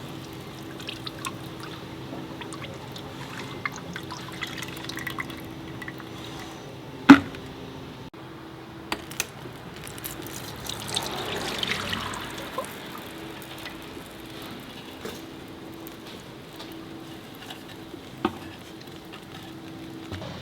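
CVT fluid draining and dripping from the transmission of a 2017 Chevrolet Spark, with scattered small tool clicks and one sharp knock about seven seconds in, over a steady low hum.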